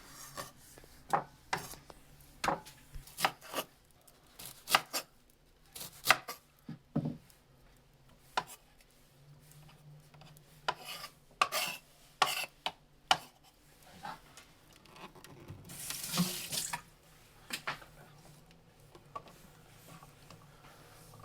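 Irregular knocks and clatters of kitchen food preparation, such as a knife and utensils on a board and dishes. A short rush of running water comes about two-thirds of the way in.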